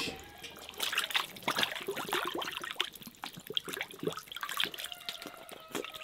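Hands working raw whole chickens: irregular wet squelches and slaps of the slippery skin and flesh.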